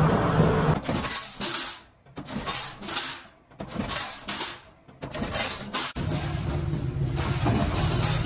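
Workshop machinery running with a steady hum, which drops out about a second in for a run of sharp metallic clinks and clatter, then picks up again near six seconds.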